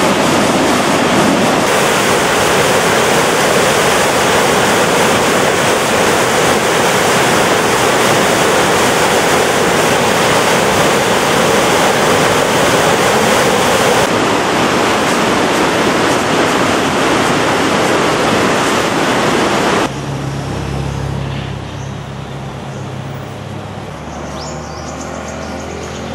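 Reservoir water overflowing a concrete spillway: a loud, steady rush of white water. About twenty seconds in it cuts off abruptly, leaving only a quieter low hum.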